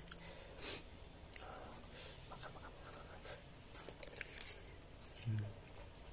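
Metal fork scraping and clicking against a plate of cooked catfish, with soft mouth sounds of eating and chewing. A brief low sound comes about five seconds in.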